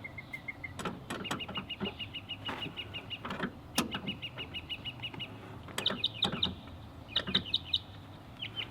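A songbird singing repeated rapid trills of short high chirps, several runs in a row, with scattered sharp metallic clicks and knocks.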